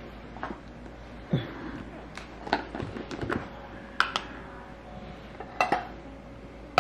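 Light kitchen clatter: a scattering of short clinks and knocks as empty metal food cans, a spoon and a spice jar are moved about on a countertop.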